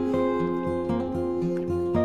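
Background music: an acoustic guitar playing plucked notes.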